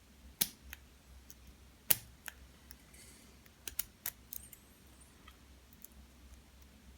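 Lock pick and tension wrench working the pins of an American 1100 series padlock: an irregular run of small sharp metal clicks and ticks, the loudest two near the start and about two seconds in, with a quick cluster a little past halfway.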